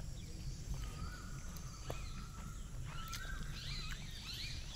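Birds calling over a low steady background rumble: a thin held whistle about a second in, then a cluster of short, higher chirps and whistles from about three seconds in.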